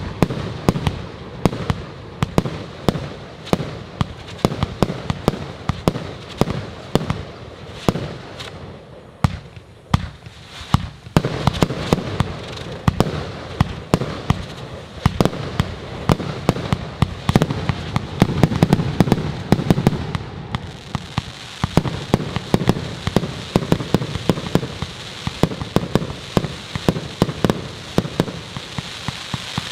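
Funke 'Fireball' 200-shot compound firework battery firing: a rapid string of launch thumps and bursting reports, many a second, with a brief thinning about ten seconds in. From about two-thirds of the way through, a dense crackling rides over the shots, as from cracker stars.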